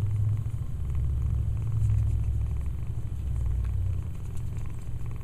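Kitten purring steadily close to the microphone, a low rumble that eases slightly about four seconds in.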